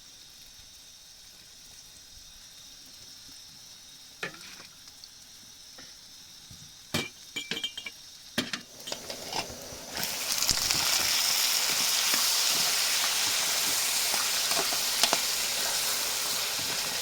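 Frying in a pan: a faint hiss with a few clinks and knocks of utensils, then a loud, steady sizzle starts suddenly about ten seconds in.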